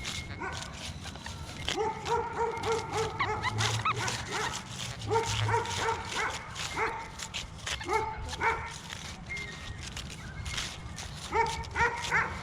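A dog barking over and over, in runs of several quick barks.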